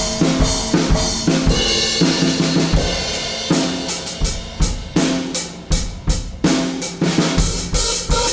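Pearl Masters Maple drum kit played in a busy groove: snare, bass drum and tuned tom hits under cymbal wash.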